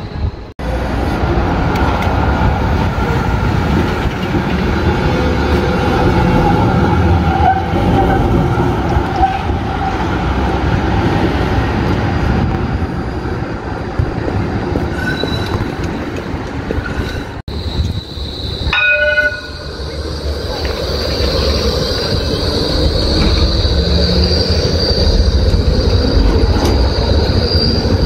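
Melbourne trams running through a tram stop: rumble and rail noise as trams arrive and move off. About 19 s in a tram sounds a short pitched warning gong. After that an E-class tram rounds the curve close by with a high, steady wheel squeal.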